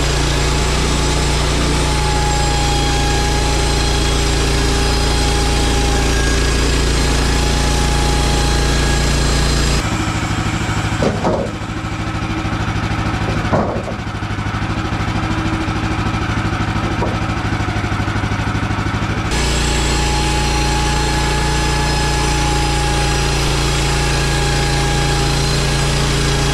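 Woodland Mills HM130MAX bandsaw mill's gas engine running at steady speed. For about ten seconds in the middle it drops to a lower, pulsing idle with a few knocks, then comes back up to speed.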